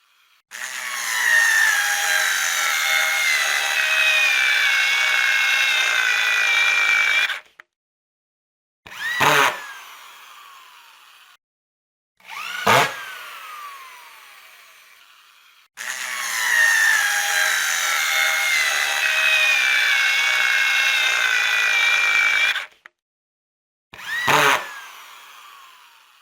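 Electric screwdriver motor running. There are two long runs of about seven seconds each, their pitch sagging slightly. Between them come short trigger blips that spin up and then wind down.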